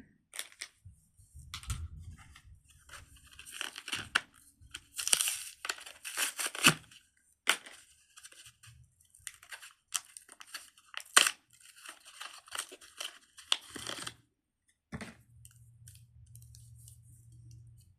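Fidget toys being handled: irregular rustling, tearing-like noises and sharp clicks, with a faint low hum in the last few seconds.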